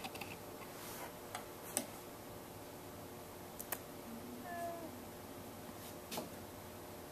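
Quiet room tone with a few faint sharp clicks and, about four and a half seconds in, one short faint squeal that bends in pitch.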